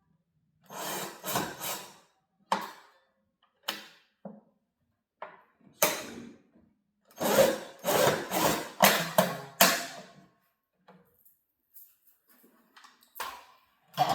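Hand scraping strokes on wood, like sanding or filing. They come in short runs, about three near the start and five or six in a row a little past the middle, with single strokes between.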